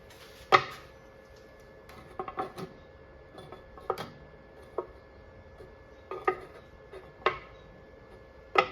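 A series of separate sharp knocks and clinks, about seven, spaced a second or so apart: hard objects being handled and set down. The loudest come about half a second in and near the end.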